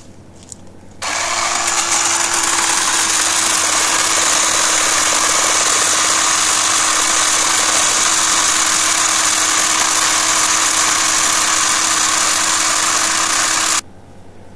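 Ryobi 10-inch battery-powered chainsaw starting about a second in and running steadily with one held pitch as it cuts through a tree trunk, then stopping abruptly near the end.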